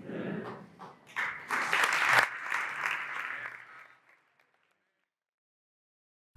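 A crowd of guests applauding, swelling to its loudest about two seconds in, then dying away and fading out about four seconds in.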